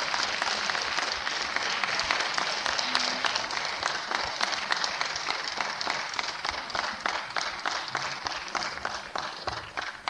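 Audience applauding, a dense patter of hand claps that slowly thins and dies away near the end.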